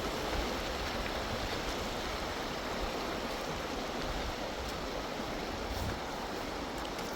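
Swollen river rushing steadily, with a lot of water flowing fast.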